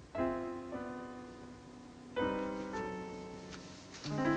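Piano music from the dramatic score: a sustained chord, a new chord struck about two seconds in and another near the end, each one slowly fading.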